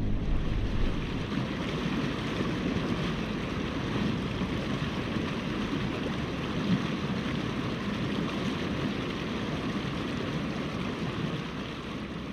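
Rushing river water running over rapids, a steady even rush that eases off near the end.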